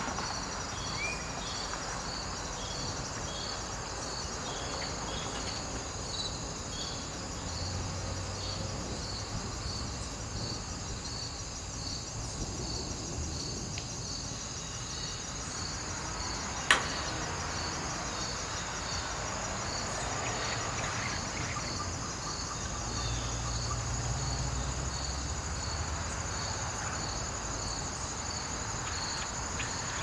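Crickets chirping in an even, regular rhythm over a steady high insect drone. A single sharp click sounds a little past halfway, and a faint low rumble swells and fades twice.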